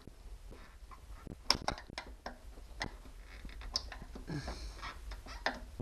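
Irregular sharp clicks and taps of a screwdriver working at plastic trim-panel clips, prying to pop one loose.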